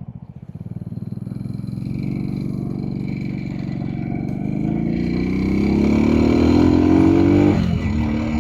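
A 50cc scooter engine, heard through a helmet-mounted mic with noise cancellation on high, accelerating with a steadily rising pitch for several seconds. Near the end the pitch drops abruptly and the engine then runs steady.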